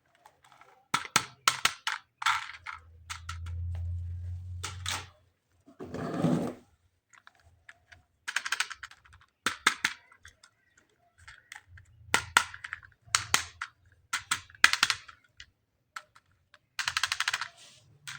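Plastic toy parts being handled, with clusters of sharp clicks and rattles. A low hum runs from about two and a half to five seconds in, and a short rustle comes about six seconds in.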